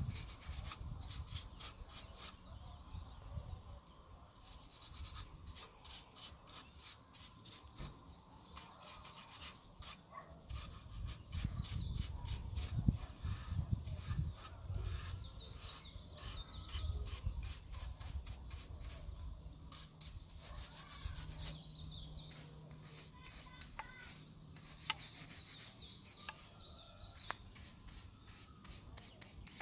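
Small bristle brush scrubbing over a carved wooden figure in quick, repeated strokes, with low bumps from the figure being handled, heaviest about halfway through.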